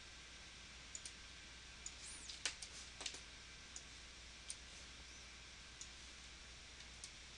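Faint computer mouse clicks, single sharp clicks scattered roughly a second apart, over a low steady hum. A couple of faint, short, high-pitched chirps come in between.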